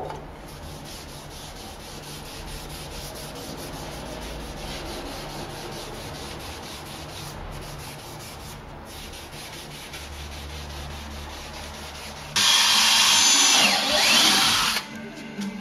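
A cloth rubbing finish by hand into a carved white oak door handle, a soft, steady scratchy rubbing. About twelve seconds in, a much louder burst of a power tool working inside a drawer lasts about two seconds.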